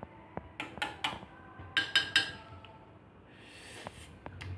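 A metal fork clinking lightly against a bowl of Sprite, several small clicks in the first two seconds, followed by a soft hiss near the end.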